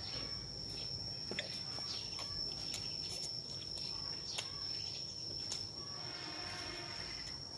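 Steady high-pitched drone of insects, unbroken throughout, with scattered faint clicks of chewing.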